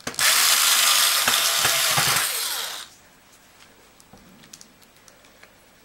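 Cordless electric screwdriver running for about three seconds, driving a screw into the plastic clock-radio case, then stopping. A few faint light ticks follow.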